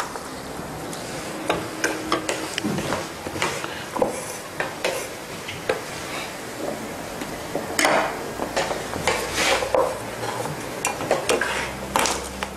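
Beef and vegetables being stir-fried in sauce in a nonstick frying pan: a wooden spatula and a metal utensil scrape and knock irregularly against the pan, over a sizzle.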